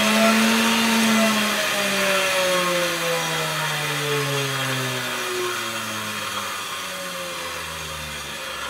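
Small bench grinder's motor coasting down after being switched off: its whine falls slowly and steadily in pitch and fades as the wheel spins down, over a steady hiss.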